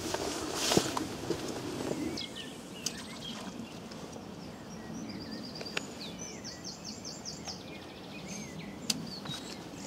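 Small songbirds chirping and trilling, with short quick notes and rapid runs of repeated notes, over steady outdoor background noise. There is a brief rustle with a sharp knock less than a second in, and a few single sharp clicks later.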